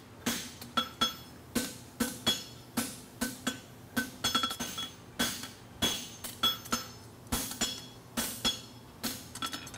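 Hand hammer striking a steel horseshoe bar on an anvil, about three blows a second, each with a short metallic ring: the bar is being forged hot and spread for width at the toe of a draft horseshoe.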